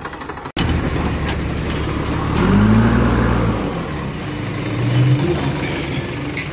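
JCB 3DX backhoe loader's diesel engine running close by. About half a second in there is a brief cut-out of the sound. The engine revs up around two and a half seconds in and then eases back.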